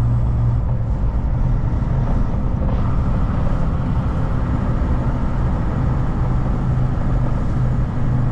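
Kenworth T880 semi truck's Cummins diesel engine running with a steady low drone at road speed, mixed with tire and road noise, heard inside the cab.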